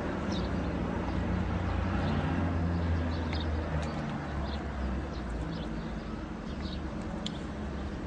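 Outdoor background: a low engine-like rumble that swells about two to three seconds in and then eases, with short, high chirps of birds scattered throughout.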